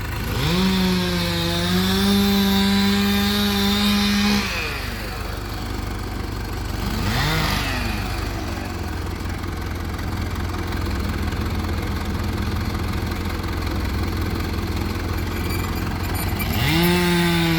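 Two-stroke chainsaw cutting wood at full throttle: it runs high and steady for about four seconds starting half a second in, revs briefly about seven seconds in, and runs again near the end. Under it a diesel engine idles with a steady low rumble, likely the backhoe.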